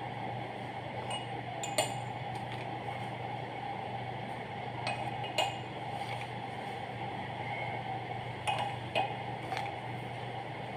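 A spoon clicking against a mug several times as custard powder is spooned into cold milk, over a steady low hum.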